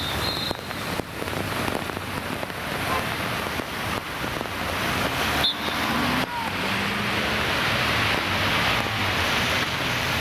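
Street traffic on a wet road in the rain: a steady hiss of rain and tyres with a low engine rumble from a police motorcycle and a coach, growing a little louder in the second half.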